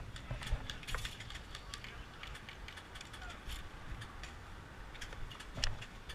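Scattered sharp clicks and snaps at an irregular pace, the loudest about five and a half seconds in, over a low rumble of wind or handling on the camera microphone.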